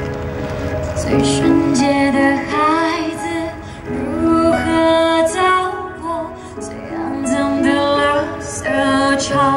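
A woman singing a Mandarin pop ballad live into a microphone, held notes bending from one to the next, over live band accompaniment.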